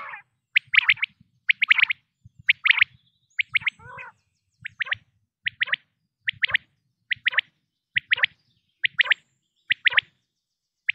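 Quail calling over and over in short, clipped, high-pitched notes, mostly in quick groups of two or three, roughly one group every second. Lower, burbling calls come in near the start and about four seconds in.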